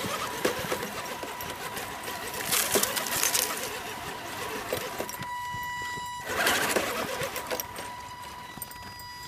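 RC crawler truck's 17-turn brushed electric motor and gear train whining steadily as it is pushed hard up a snowy, rocky slope. There are two louder rough bursts, about two and a half seconds and six and a half seconds in, as the wheels scrabble over snow and rock.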